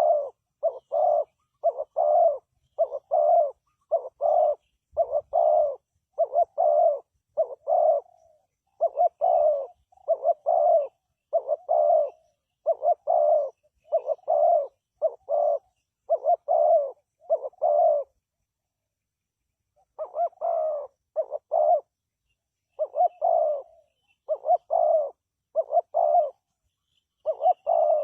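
Spotted dove cooing over and over in a steady run of low, soft coo notes grouped in short phrases, with a pause of about two seconds past the middle.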